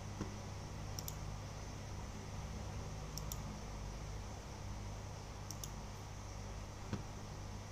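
Steady low room hum with a few faint, sharp clicks, some doubled, about every two seconds, and a duller tick near the end.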